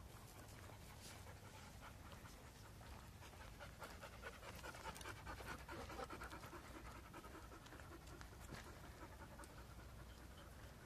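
A dog panting quietly, a little stronger around the middle.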